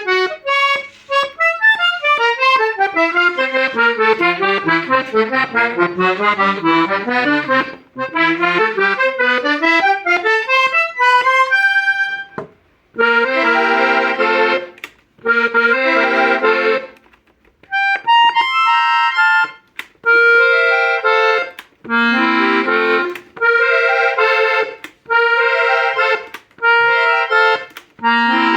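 Hohner Ouverture V 5 accordion being played as a sound test. For the first twelve seconds it runs single notes quickly down and up the scale. From about thirteen seconds it plays short held chords, one after another, with brief gaps between them.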